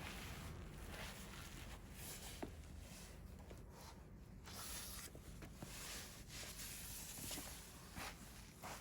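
Wood campfire burning: a soft hiss of flame that swells and fades, with scattered small crackles and pops.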